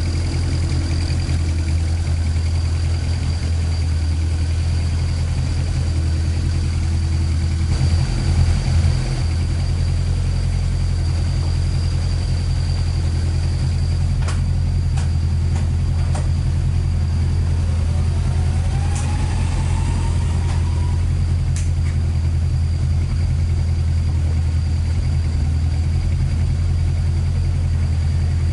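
Toyota AE86's 4A-G twin-cam four-cylinder engine with individual throttle bodies idling steadily, swelling slightly about eight seconds in.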